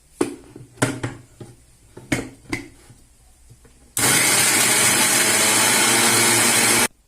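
A few sharp knocks and clicks. Then, about four seconds in, an electric mixer grinder runs loudly for about three seconds, grinding torn bread into crumbs, and cuts off suddenly.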